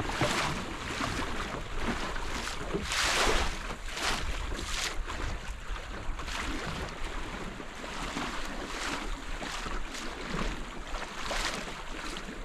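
Waves slapping and splashing against the wooden hull of a small sailing canoe yawl as it runs through open-water chop. The splashes come irregularly, the biggest about three seconds in, over a steady wash of water and wind rumble on the microphone.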